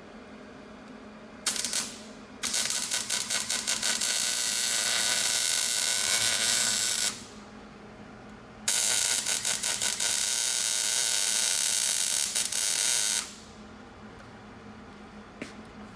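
Electric welding arc crackling and buzzing in three runs: a short tack about a second and a half in, then two longer beads of about four and a half seconds each, each one stuttering as the arc strikes.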